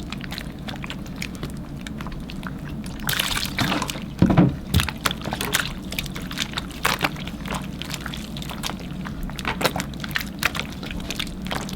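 Slime being mixed and kneaded with activator: irregular wet squelches and sticky clicks, with a louder cluster about four seconds in.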